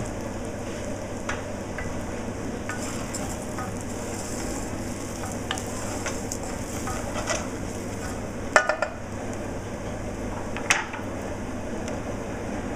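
Carnaroli rice toasting dry in an aluminium saucepan over a gas flame while being stirred: a steady low sizzle with scattered knocks and scrapes of the spoon against the pot, the loudest a quick cluster of knocks about two-thirds through. This is the toasting stage of a risotto, heating the grains before the wine goes in.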